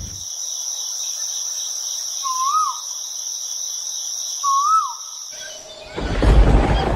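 Insects trilling steadily at a high pitch, with a bird giving two short whistled calls, each rising then dropping. About six seconds in, the trilling stops and a loud rushing noise takes over.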